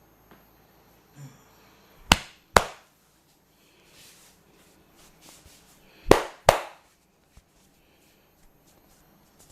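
Hand strikes of a head massage: two pairs of sharp smacks, the two in each pair about half a second apart, the first pair about two seconds in and the second about six seconds in.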